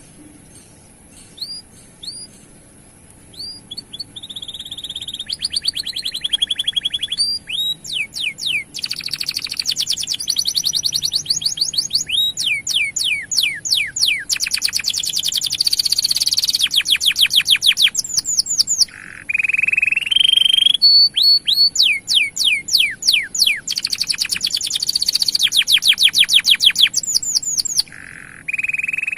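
Male domestic canary singing a long song: a few separate chirps at first, then from about four seconds in, loud fast trills and rolls of rapidly repeated notes, broken by short pauses.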